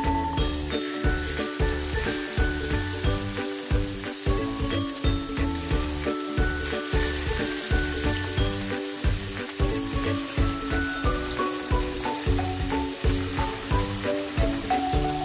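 Coated chicken pieces deep-frying in hot oil in a wok, a steady sizzle, under background music with a steady beat.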